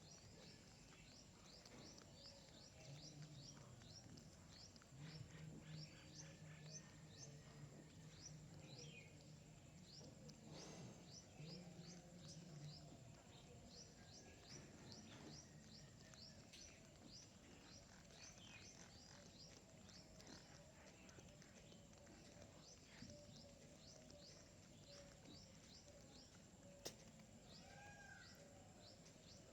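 Small birds chirping: many short, high, quick chirps, thick for the first dozen seconds and thinning out after. A low steady hum runs under them for about ten seconds, and there is one sharp click near the end.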